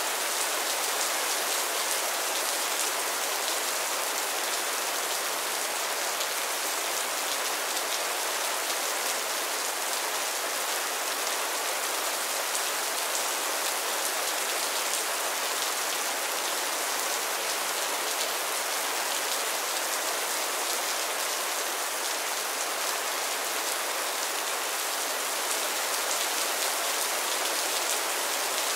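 Heavy rain falling steadily: an even hiss of many drops, with no thunder.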